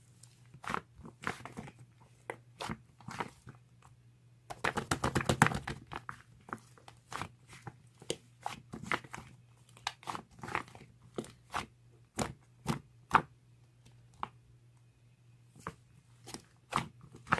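Slime being squeezed and pressed by hand, giving sharp sticky clicks and pops, with a dense run of rapid clicks about five seconds in. A steady low hum lies underneath.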